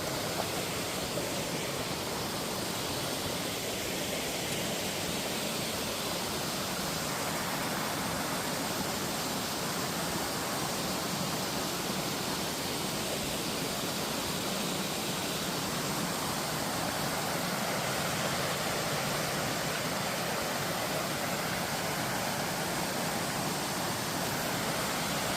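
Mountain valley stream rushing steadily, an even hiss of flowing water.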